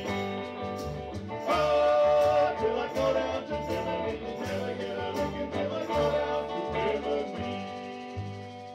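Live calypso band playing the closing bars of a song on bass, guitar and drums, with regular cymbal hits, winding down and getting quieter near the end.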